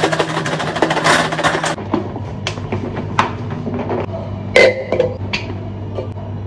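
Kitchen glassware and bottles being handled on a stone counter: a quick run of rattling clicks over the first two seconds, then scattered single knocks and a louder ringing clink about four and a half seconds in, over a steady low hum.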